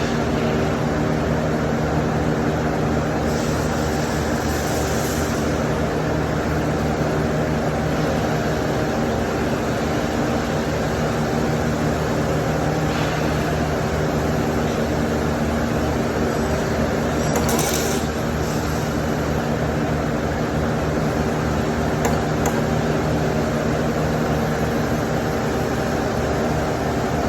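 MIG welding arc on stainless steel, a steady crackling buzz held without a break.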